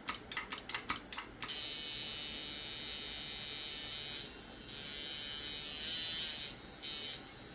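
A quick run of clicks, then a coil tattoo machine with aluminum-wire coils starts up about a second and a half in and runs with a steady high buzz. Its level and tone drop briefly twice as it is tuned for the sweet spot.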